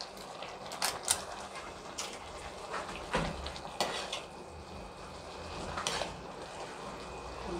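Perforated metal spatula stirring noodles in a metal kadhai, clinking and scraping against the pan about half a dozen times, spaced irregularly, over a low steady background.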